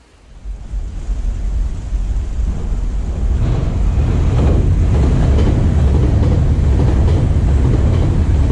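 Nankai Rapi:t limited-express electric train crossing a steel girder railway bridge overhead. A rumble builds over the first few seconds, then stays loud, with irregular knocks through it.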